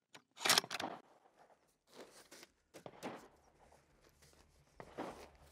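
A few short, faint rustling and scraping handling noises, the strongest about half a second in, as a shooter settles in behind a rifle at the bench. No shot is fired.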